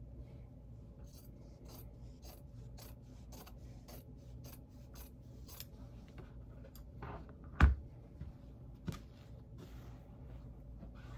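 Scissors snipping through folded layers of fabric, about two cuts a second. About seven and a half seconds in there is a single sharp knock, the loudest sound, then a smaller one and the rustle of fabric being handled.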